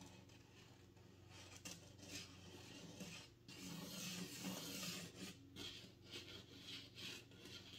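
Faint scratching and rubbing of a Posca acrylic paint-pen tip drawn in quick, loose squiggles across paint-covered watercolor paper, in irregular strokes that are busiest around the middle.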